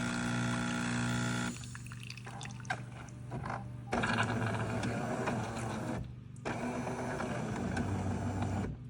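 Super-automatic espresso machine running its shutdown rinse: the pump hums steadily, then stops about a second and a half in, and water runs out of the spout into the cup in spells, with a short break about six seconds in.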